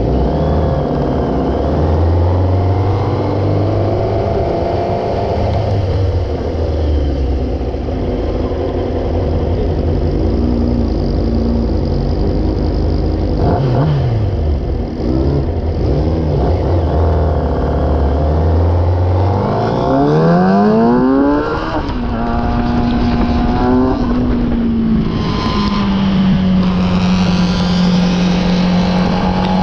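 Sport motorcycle engine pulling through the gears, its pitch climbing under acceleration and dropping at each shift or when rolling off, over steady wind noise. It climbs hard about 20 s in and again about 26 s in.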